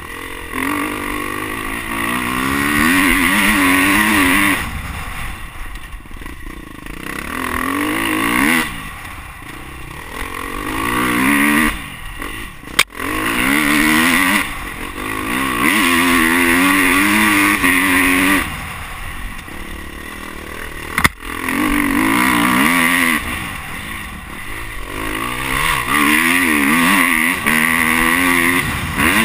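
Dirt bike engine, heard close from its handlebar-mounted camera, revving up and falling off again and again as the bike accelerates and slows around a motocross track. Two sharp knocks cut through it, one a little before the middle and one about two-thirds through.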